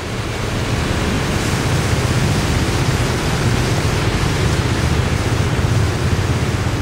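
Steady rushing of floodwater pouring across a flooded street, swelling up over the first second and then holding level.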